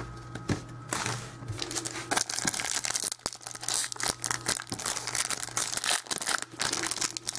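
Trading card pack wrapper being torn open and crinkled by hand: a run of fast, irregular crackles.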